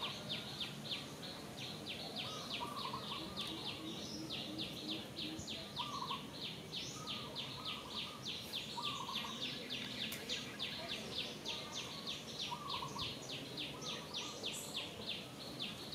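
Outdoor wildlife ambience: a steady, rapid pulsed chirping, several pulses a second, with a short lower call repeating every second or two.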